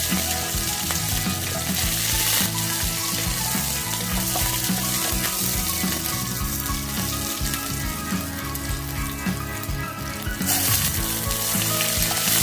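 Cumin, bay leaf and green chillies sizzling in hot oil, a steady frying hiss, as the tempering (tadka) for chickpea curry cooks. The hiss is strongest in the second half and eases about ten seconds in.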